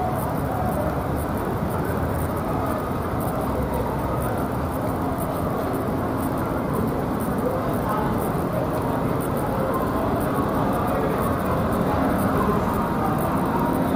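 Steady city background noise: a constant hum of distant traffic with faint, indistinct voices.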